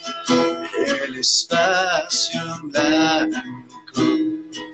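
A song: a man singing over strummed acoustic guitar.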